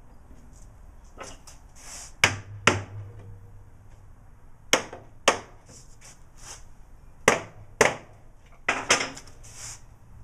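Sharp knocks on a wooden case during glue-up and clamping, coming in four pairs about half a second apart, with lighter clicks and taps between.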